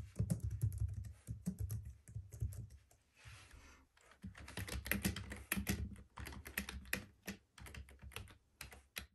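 Fast typing on a Logitech MX Keys low-profile scissor-switch keyboard: soft, dull key taps. About four seconds in it changes to typing on a conventional full-height keyboard, with crisper, brighter key clicks.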